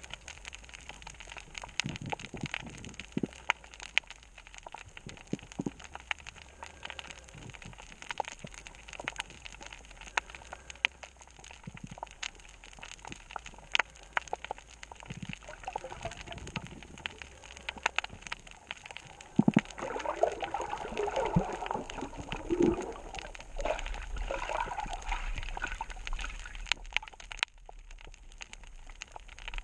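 Underwater reef sound: a steady crackle of scattered sharp clicks, with a stretch of bubbling and gurgling water for several seconds about two-thirds of the way through.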